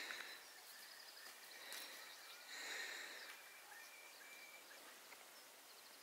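Faint distant birdsong over near-silent open air: a few short trills and calls, one near the start and another about halfway through.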